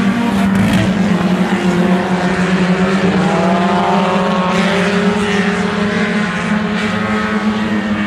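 Several dirt-track stock car engines running hard as the cars race around the oval, with engine pitch rising as cars accelerate about three seconds in.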